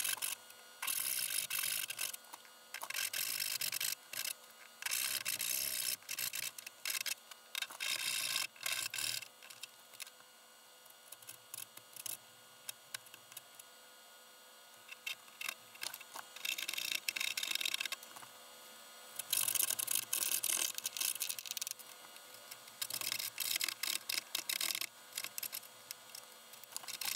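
Hand saws, a dovetail saw and a coping saw, cutting out the fingers of a tenon on the end of a wooden board, in bursts of quick rasping strokes. A quiet spell of about six seconds falls partway through.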